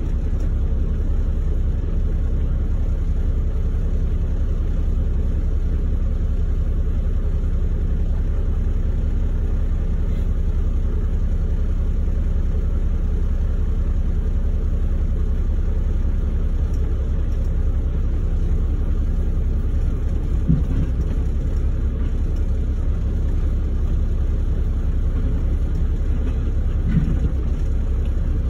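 Steady low rumble of an idling diesel engine, heard from inside a log truck's cab. Two dull thumps come through, one about two-thirds of the way in and one near the end.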